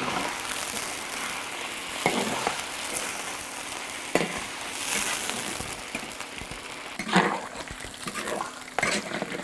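Cubes of pork belly frying in oil in a black wok: a steady sizzle, louder for a moment a few times, as the fat is rendered out over low heat.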